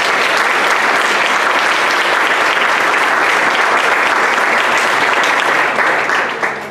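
Audience applauding: steady clapping that dies away near the end.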